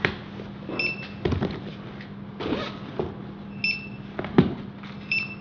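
Handheld barcode scanner giving three short, high beeps, each the confirmation of a successful read of a library book's barcode. Knocks of books being handled and set down on the counter fall between the beeps.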